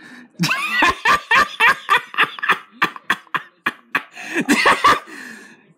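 A person laughing hard: a run of quick, rhythmic bursts of laughter that starts about half a second in and dies away near the end.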